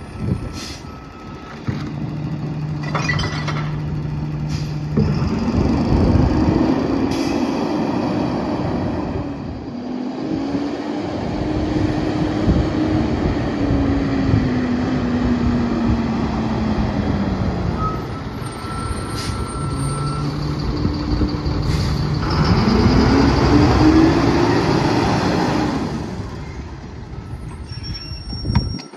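Freightliner M2 rear loader garbage truck's diesel engine idling steadily, then revving up and slowly easing back down, twice. Short air-brake hisses come in between.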